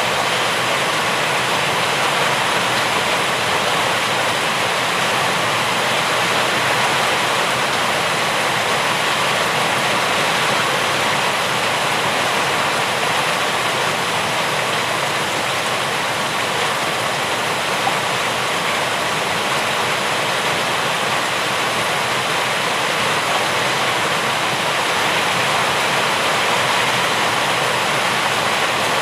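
Steady rain falling: an even, unbroken hiss with no single drops, thunder or other events standing out.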